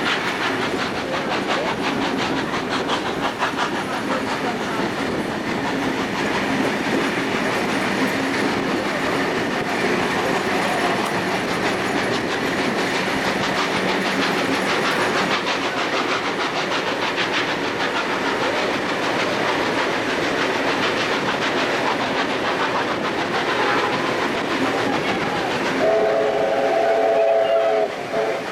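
Steam train running, the locomotive and carriage wheels on the rails giving a steady dense noise, heard from an open carriage window. Near the end the locomotive's steam whistle sounds once for about two seconds.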